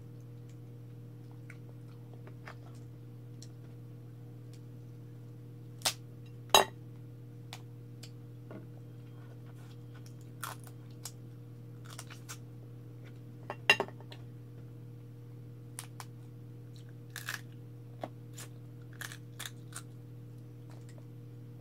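Cooked crab being eaten by hand: scattered sharp cracks and clicks of shell breaking, the two loudest about six and a half and fourteen seconds in, with chewing between them. A steady low hum runs underneath.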